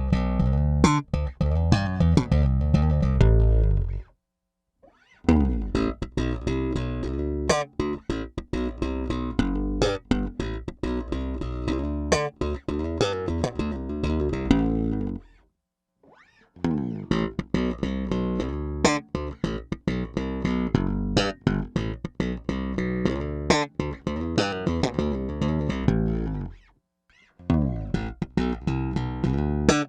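Peavey T-40 electric bass played slap style: thumb-slapped low notes and snapping popped notes in quick, percussive phrases, broken by three brief silences of about a second each.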